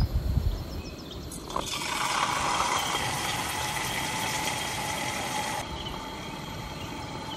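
A lingcod tail fillet is laid flesh side down in hot oil in a pan and sizzles. The sizzle starts suddenly about a second and a half in and eases to a quieter, steady sizzle near the end.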